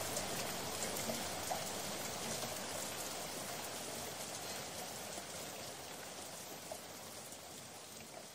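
Steady hiss of rain with a few scattered drop ticks, fading slowly out.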